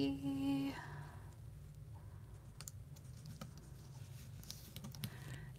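Faint scattered ticks and clicks of fingers handling and pressing small die-cut paper letters onto a card, over a low steady hum.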